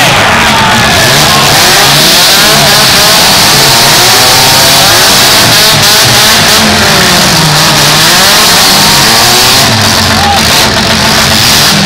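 Several compact demolition-derby cars' engines revving hard at once, their pitches rising and falling over one another, very loud throughout.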